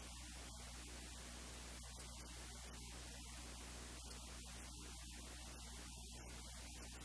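Steady low electrical hum with a constant hiss of static.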